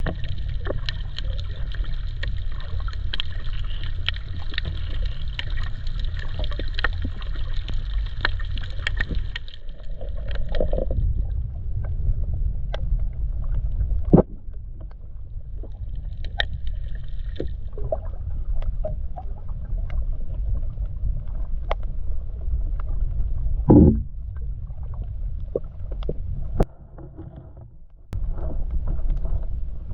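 Nurse sharks splashing and stirring at the water's surface over a steady low rumble, with scattered sharp splashes. About 24 seconds in, one short, loud gurgling burst: a shark's burp.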